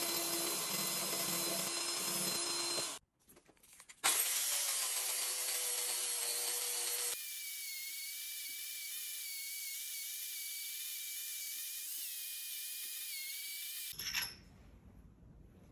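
A flexible-shaft rotary tool grinds a spade design into a 5160 spring-steel plate, with a loud, steady grinding. After a short break, a handheld angle grinder with a sanding disc grinds the steel edge. Its motor whine wavers in pitch as the load changes, then cuts off suddenly near the end, leaving quiet.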